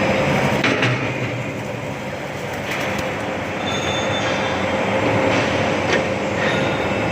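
A DY-80CNC metal chamfering machine running and cutting a bevel: steady machine noise with a constant hum, a few sharp metallic clicks, and brief high-pitched squeals from the cutter on the metal about halfway through.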